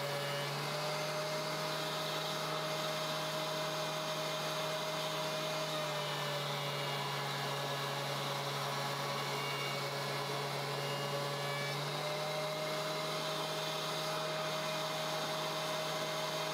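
DeWalt DW735 thickness planer with a Lux Cut III helical carbide-insert cutterhead running and planing a board of 8/4 sapele. A steady machine hum, whose pitch shifts slightly in the middle as the board passes through.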